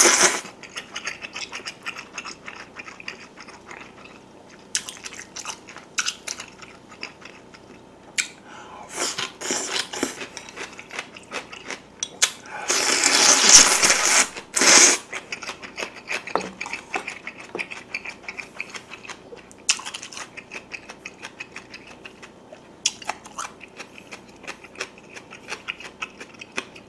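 Close-miked eating: a short slurp of glass noodles at the start and a longer, louder slurp from the plate of soy braising sauce about 13 seconds in. In between come many small wet clicks of chewing and lip-smacking.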